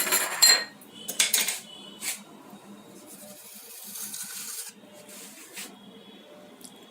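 Kitchen utensils being handled: a few short clinks and scrapes in the first two seconds, then a softer scraping hiss lasting about a second and a half.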